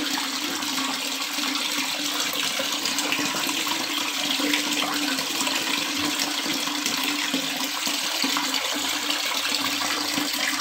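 Steady splashing rush of a water jet from an automatic float valve pouring into a partly filled tiled bath tub, with a steady low hum from the electric water pump underneath. The valve is still open because the water has not yet reached its sensor, so the tub keeps filling.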